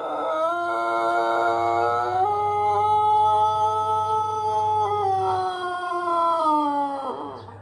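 Pelung rooster crowing one very long, melodious crow, the call this ornamental Indonesian breed is kept for. It is held for about seven seconds, stepping in pitch a couple of times and sliding down at the end.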